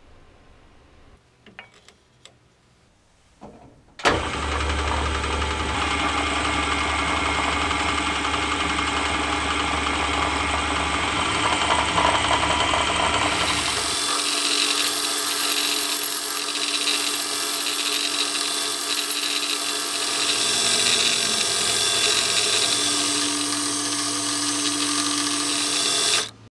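Myford ML7 metal lathe: a few faint clicks, then the motor switched on about four seconds in and running loud and steady with a low hum. Past the middle the lathe is turning a brass rod with a tipped cutting tool, and the sound turns brighter and hissier as it cuts, until it stops suddenly near the end.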